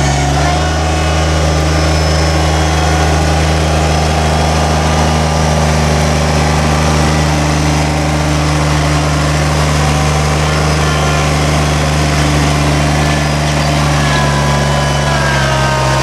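Kubota BX25D compact tractor's three-cylinder diesel engine running steadily as the tractor drives, with a fainter whine that shifts in pitch near the end.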